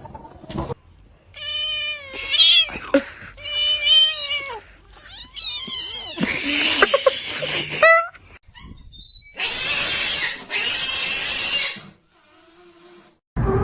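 Domestic cat yowling: three drawn-out, wavering calls in the first half, followed by long, harsh breathy bursts that sound like hissing near the end.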